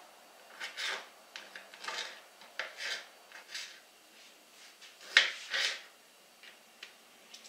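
Kitchen knife cutting cherry tomatoes on a plastic cutting board: irregular short cutting strokes and taps, the two loudest about five seconds in.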